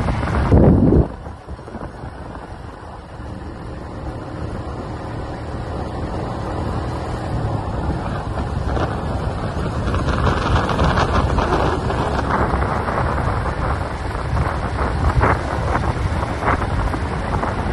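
Wind rushing over the phone's microphone on top of the rumble of a vehicle moving at speed along the road. A louder rush in the first second drops off abruptly, and the noise then builds steadily again.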